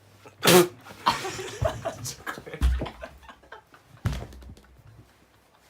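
A person's sharp sneeze, despite trying to keep it quiet, about half a second in, followed by laughter and a couple of low thumps.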